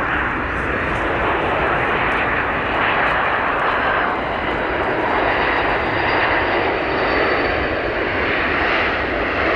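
Steady, unbroken aircraft engine and airflow noise, with a faint high whine above it.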